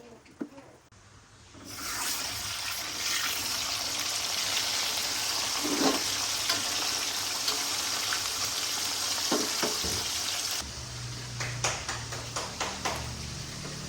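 Water running hard from a tap, turned on about two seconds in and shut off abruptly near ten seconds, then a low hum with a few light clicks.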